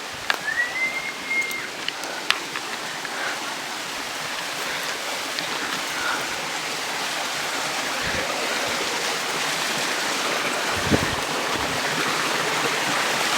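Running water of a stream, a steady rushing that grows gradually louder. A short high whistle sounds near the start.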